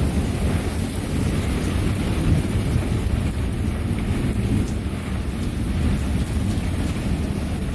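Thunderstorm: rain falling steadily with a low rumble of thunder underneath, no sharp crack.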